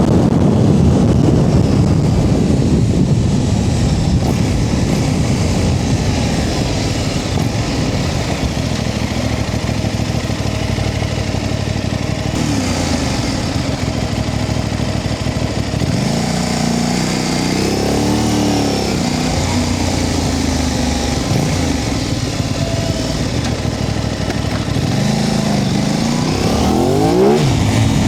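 Aprilia RS660 Extrema's parallel-twin engine pulling the bike along with loud wind rush. About two-thirds through, the revs drop and pick up again, and near the end the engine climbs in pitch as the bike accelerates.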